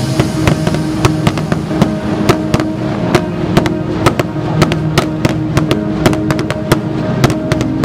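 Feast fireworks going off in a rapid, irregular string of sharp bangs and cracks, several a second, over music with long held notes.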